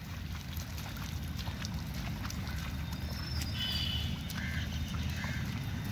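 Open-air paddy-field ambience: a steady low wind rumble on the microphone, light splashes and squelches as rice seedlings are pushed into the flooded mud, and three short high calls in the second half.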